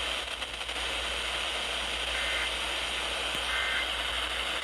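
NOAA Weather Radio receiver hissing with static. From about two seconds in, three short, buzzy two-tone data bursts sound at even spacing, typical of the EAS end-of-message code that closes a broadcast alert.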